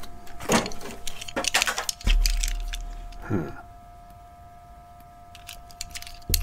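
Handling noise from a carded diecast toy car: light clicks and rustling of plastic blister packaging, a dull thump about two seconds in, then a few faint clicks and another thump at the end.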